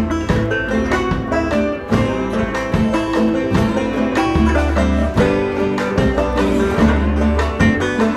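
Background music: plucked-string instruments playing an upbeat tune over a steady beat and bass line.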